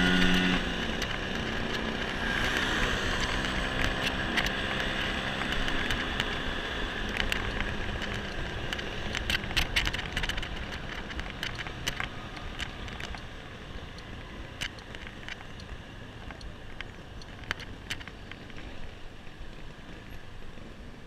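Scooter ride heard from the handlebars of a Honda scooter: the engine note drops away about half a second in as the throttle closes, leaving road and wind noise that slowly fades as the scooter slows. Scattered light clicks and rattles run through it.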